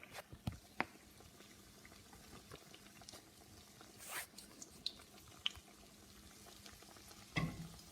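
Tuna kebab patties frying in oil in a pan, a faint steady sizzle, with light clicks and taps of a spatula against the pan as they are turned over, several in the first second and a louder knock near the end.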